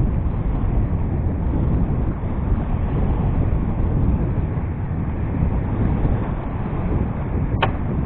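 Steady low wind rumble buffeting the microphone, with a single sharp click near the end.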